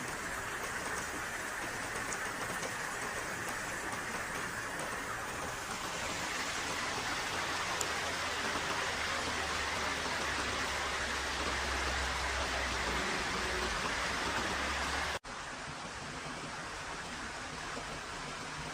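Steady rushing noise of water, as from rain or a stream. It drops out briefly about fifteen seconds in at an edit.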